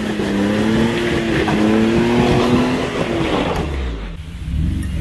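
Off-road 4x4 engine held at raised revs under load as the vehicle is eased up onto a trail, then easing off about three seconds in.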